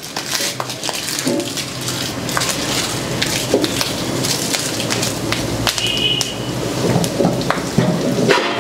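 Whole spices frying in hot oil in an iron kadai: dried red chillies, curry leaves, bay leaves, cinnamon and fennel sizzling and crackling steadily as the tempering fries.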